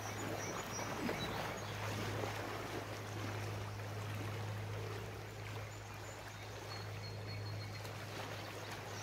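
Small river water running steadily, with a steady low hum underneath.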